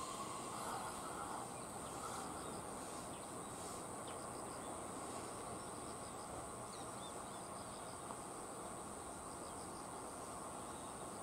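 Steady rural background with insects chirping faintly in short repeated trills. The last of a 227-series electric train's brake squeal dies away in the first second or so as it comes to a stand at the station.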